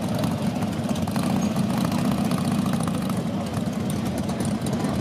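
Several Harley-Davidson motorcycles idling together, their V-twin engines making a steady low running sound.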